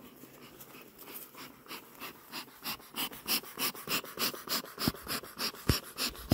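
Bee smoker's bellows pumped in quick hissing puffs, about three a second, getting stronger, smoking a hive before it is opened. A sharp knock near the end.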